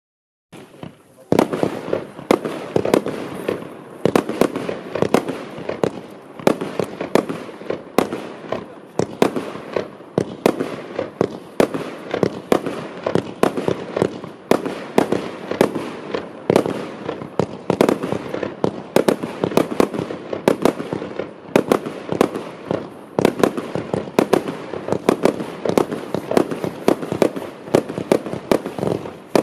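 Klasek C493E Legionář fireworks cake firing: a continuous rapid run of launch thumps and aerial bursts, several a second, starting about half a second in.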